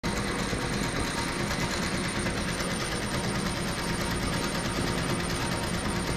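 HSW 12-needle high-speed embroidery machine stitching steadily, a fast, even mechanical chatter.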